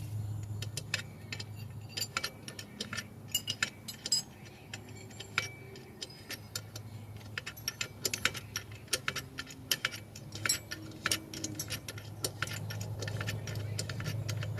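Hand tools and steel parts clicking and clinking in irregular runs as the chain adjuster on the second side of a pit bike's rear axle is set to take up chain slack; the clicks come thickest about two thirds of the way through.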